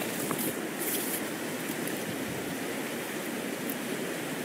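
Steady rush of stream water running over rocks.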